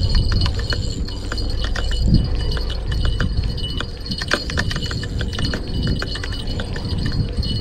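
Offshore Angler Tightline fishing reel being cranked hard to bring in a hooked striped bass, its mechanism giving a quick irregular run of clicks and ticks. Underneath is a low rumble of the jacket sleeve rubbing against the chest-mounted camera, heaviest in the first few seconds.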